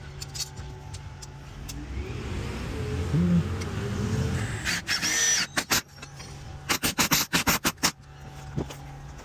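A motor vehicle's engine rumble swells and fades over a few seconds, then a quick run of sharp clicks and knocks follows.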